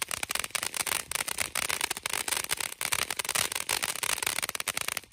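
Freedom Fireworks 'Live Wire' fountain firework spraying sparks: a steady hiss packed with rapid crackling pops, cutting off suddenly near the end.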